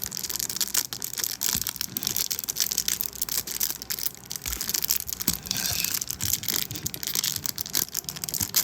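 Plastic packaging wrap crinkling in dense, irregular crackles as hands pull and twist at it, trying to tear it open.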